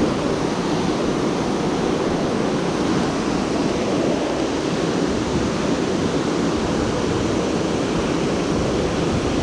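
Steady rushing of water pouring over a man-made dam waterfall, an even, unbroken roar of falling water.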